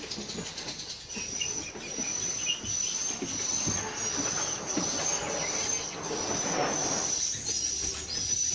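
An insect's steady high-pitched buzzing trill, slightly wavering, coming in about a second in. Under it are irregular knocks and rustling.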